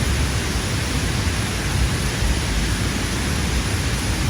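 Steady rushing noise with a strong, unsteady low rumble underneath.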